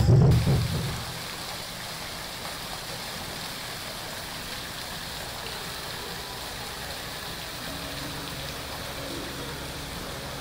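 Music fades out in the first second, leaving the steady splashing rush of a small indoor waterfall falling into a pool.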